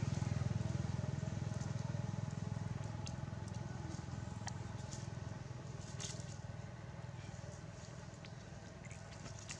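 The engine of a passing vehicle runs low and steady, fading gradually into the distance. A few faint crackles of dry leaves sound through it.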